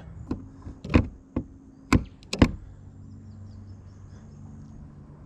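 Five sharp knocks, unevenly spaced over about two seconds, then only a faint steady hum.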